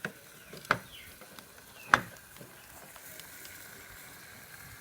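Metal utensil knocking sharply against a metal pot three times, the loudest about two seconds in, while a potassium nitrate and sugar mixture cooks with a faint steady sizzle.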